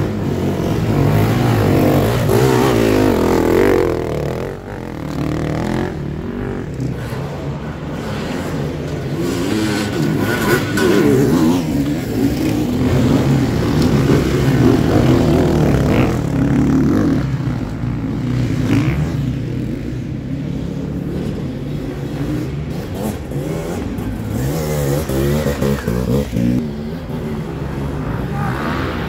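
Several enduro dirt bike engines revving hard, the pitch rising and falling over and over as the riders work the throttle.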